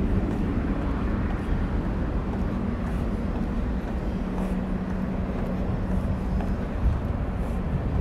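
Parrot Anafi quadcopter's propellers humming steadily as it descends to land, over a low outdoor rumble; the hum is strongest midway.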